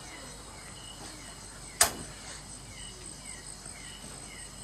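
Insects chirping: a steady high buzz with repeated short falling chirps. A single sharp click about two seconds in is the loudest sound.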